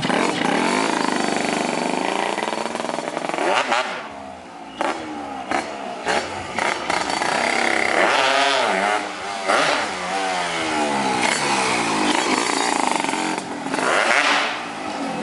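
Yamaha RD 135 two-stroke motorcycle engine running and being revved up and down several times, with dips back toward idle between the revs. The bike is making a noise that its owner is concerned about.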